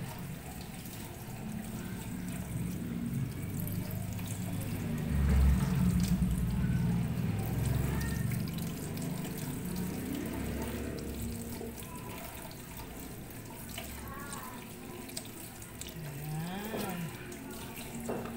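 Water running from a kitchen tap into a plastic colander in a steel sink while raw chicken feet are rubbed and rinsed under the stream.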